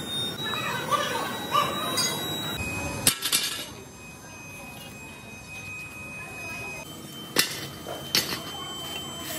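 Metal hub plate castings clinking and clanking as they are handled and dropped onto a scrap heap: a few sharp clinks in the first three seconds, a quieter stretch, then several clanks near the end. Voices talk in the first few seconds.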